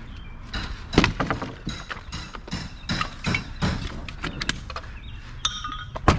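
Wood framing and boards being knocked out during a hand demolition of a house wall: repeated hits with cracking and splintering, the hardest about a second in and another near the end. A brief squeak comes just before the last hit, and a steady low rumble runs underneath.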